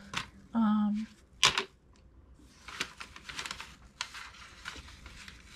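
Paper scraps and craft supplies being rummaged and shuffled through: a run of quick rustles and light taps. Near the start a short hummed 'mm' from a voice, then one sharp tap about a second and a half in.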